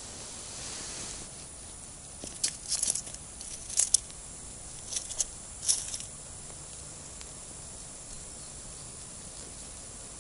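Handling noise from jigging a small winter ice-fishing rod: a few clusters of short, sharp, high crackles and rustles between about two and a half and six seconds in, over a steady faint outdoor hiss.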